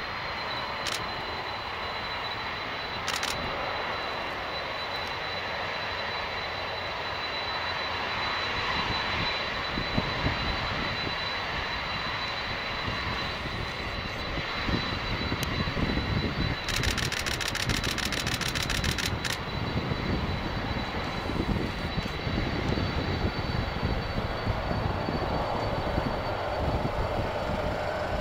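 Boeing 747 four-engine turbofans at takeoff thrust: a steady loud jet noise with a thin high whine, and a rougher low rumble building from about eight seconds in. Sharp clicks cut in here and there, with a rapid run of them near the middle.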